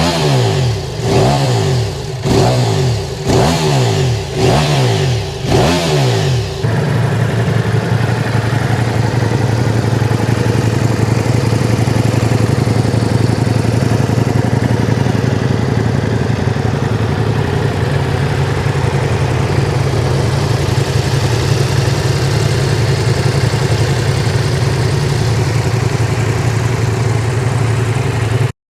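Ducati Multistrada V4S's 1158 cc V4 engine blipped about six times, each rev rising and falling, roughly one a second, then settling to a steady idle that cuts off abruptly near the end.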